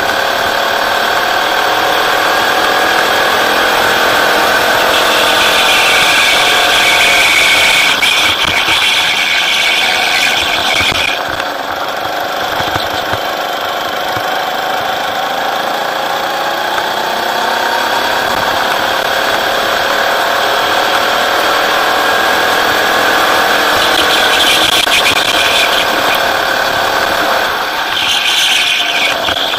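Rental go-kart engine heard onboard at racing speed, its pitch rising and falling as the kart accelerates out of corners and lifts for the next. A higher, steady sound joins it for several seconds from about five seconds in, and briefly again near the end.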